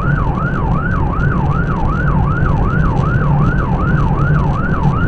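Police cruiser's siren in yelp mode, a fast rise-and-fall wail about three and a half cycles a second, heard from inside the car over the engine and road noise of driving at speed.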